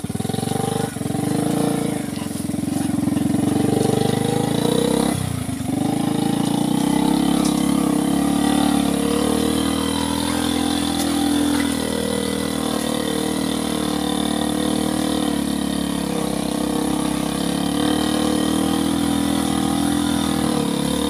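Engine of a loaded farm three-wheeler truck running steadily as it drives slowly along a dirt path, its note dipping briefly about five seconds in.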